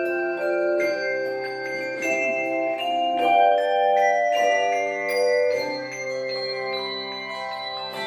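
Handbell choir playing a piece: chords of many bells ringing and sustaining over one another, with new notes struck every second or so.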